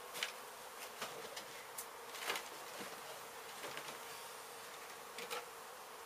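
Honey bees from an exposed hive humming steadily, with a few short knocks and rustles from debris being handled close by.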